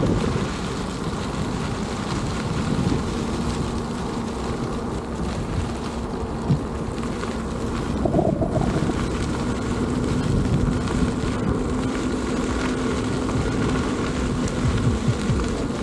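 Wind rushing over the microphone at riding speed on a Veteran Sherman S electric unicycle, with a steady low hum through most of it.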